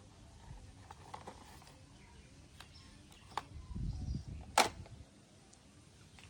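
Hands handling plastic toy vehicles: scattered small plastic clicks and soft low bumps, with one sharp click about four and a half seconds in.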